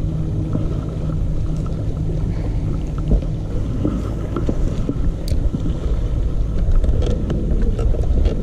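Low, steady rumbling on a small boat on the water, with scattered light clicks and knocks; a faint steady hum fades out in the first couple of seconds.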